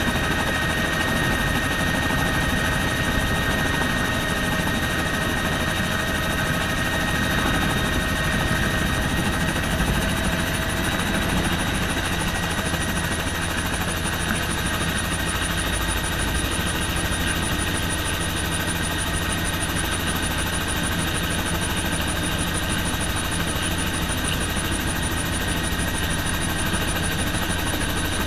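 Bell helicopter's engine and main rotor running steadily, heard from inside the cockpit, a constant mechanical drone with a steady whine over a low rumble.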